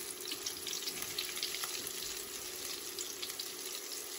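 Flour-coated chicken pieces deep-frying in a pan of hot oil: a steady sizzle with constant small, irregular crackles and pops.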